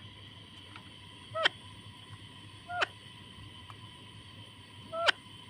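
Pet parrot giving three short low calls, each a brief pitched note ending in a sharp click, spaced about one and a half to two seconds apart.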